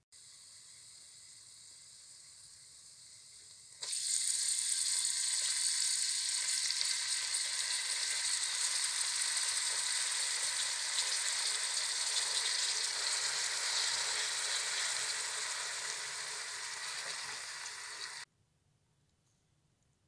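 Oil sizzling in a pan as garlic, green chillies, ginger and red chilli flakes fry. About four seconds in, the sizzling jumps much louder and stays steady once the chopped mustard and bathua greens are in the pan, then cuts off suddenly near the end.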